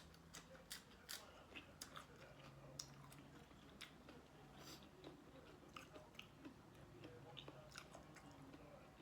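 A person chewing and biting food close to the microphone: irregular crisp crunches and mouth clicks, thicker in the first second and then scattered. The food is a spicy papaya salad with shrimp and squid.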